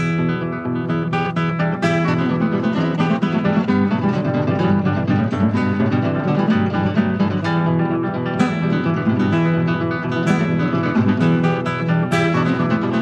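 Background music: an acoustic guitar, plucked and strummed, playing without a break.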